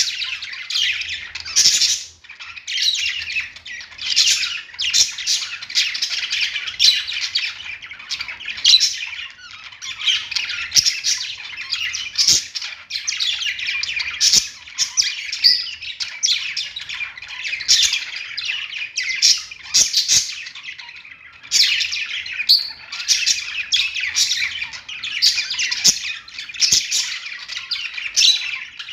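Budgerigars warbling and chattering without a break, a dense mix of chirps, sharp clicks and squawks, with brief lulls about two seconds in and again around twenty-one seconds.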